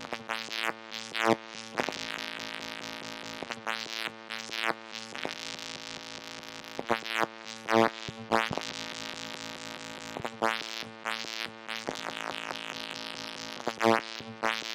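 Moog Mother-32 analog synthesizer driven by chaotic modulation from a Comdyna GP-6 analog computer: a steady buzzy drone with irregularly spaced swells that sweep up in brightness and fall back, the loudest a little past halfway and near the end.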